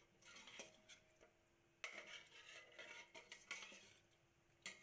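A metal spoon stirring beef and stock in a metal pot: faint, irregular scraping and clinking against the pot, with a sharper clink near the end.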